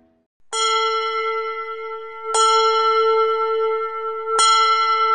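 A bell struck three times, about two seconds apart, each stroke at the same pitch and ringing on into the next.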